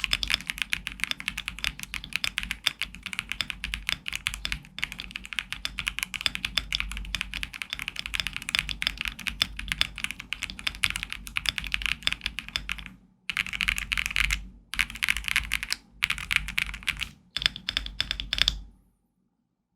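Fast typing on a stock GMK67 mechanical keyboard with WS Red linear switches and PBT keycaps, a dense run of key clacks. After about 13 seconds the typing breaks into several short bursts with brief pauses, and stops near the end.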